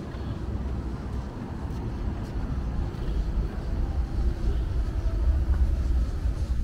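Outdoor street ambience: a low, uneven rumble that grows a little louder in the second half.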